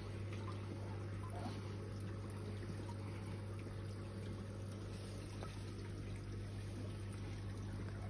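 Saltwater aquarium's circulating water: a soft, even trickle over a steady low hum.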